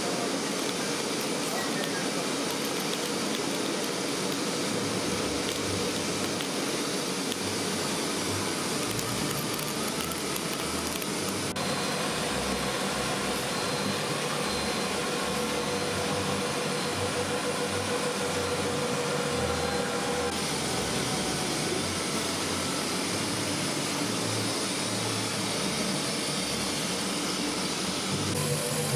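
Paper straw production line running: a steady mechanical noise from the straw conveyors and feeders, changing character abruptly about 11 and 20 seconds in.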